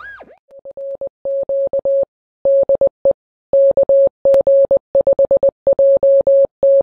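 Morse code beeps: a single-pitched tone keyed in dots and dashes, fading in over the first few seconds and then staying loud. It follows the brief tail of a sliding electronic tone right at the start.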